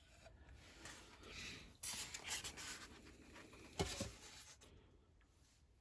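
Faint rubbing and scraping as a diecast model and its packaging are handled and put back, with one sharp knock about four seconds in.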